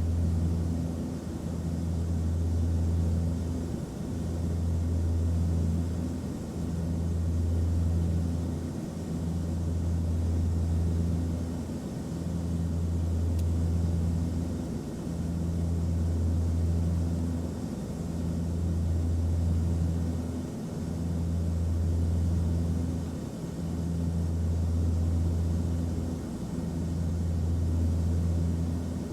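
Airliner cabin noise: a steady low drone with a softer hiss above it, the drone dipping briefly and swelling back about every three seconds.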